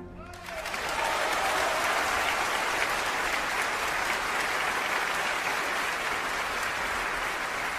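Aluminium road bike's 28 mm cyclocross tyres rolling fast over a rough dirt road, a steady crackly hiss that comes up about half a second in and cuts off suddenly at the end.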